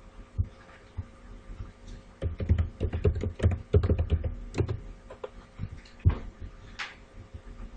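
Typing on a computer keyboard: a quick run of keystrokes in the middle, with single key or button clicks before and after.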